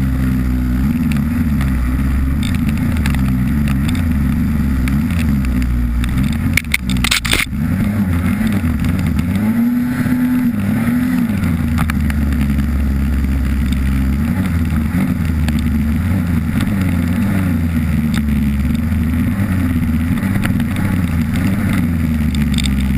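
Polaris snowmobile engine running under way, its pitch rising and falling with the throttle. A short sharp clatter is heard about seven seconds in.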